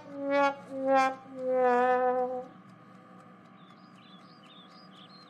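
Sad trombone comedy sound effect: four brass notes stepping down in pitch, the last held longest, the classic "wah-wah-wah-waaah" of failure. Faint high chirps follow near the end.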